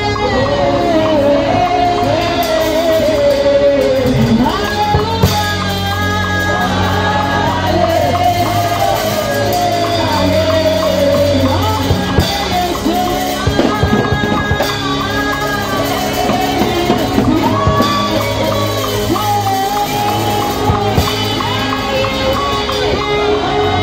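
Amplified gospel worship singing: a woman leading a song loudly into a microphone, with backing singers and instrumental accompaniment holding steady low notes underneath.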